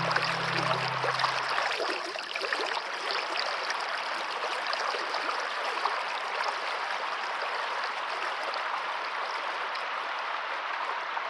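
Steady rush of running water, with low sustained music notes that fade out about two seconds in.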